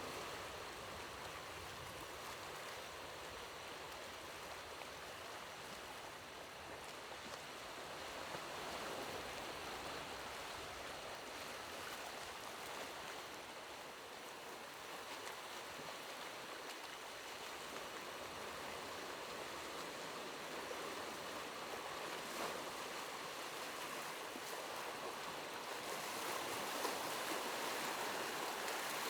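Steady rushing of water, a continuous hiss without separate splashes, growing brighter and a little louder near the end.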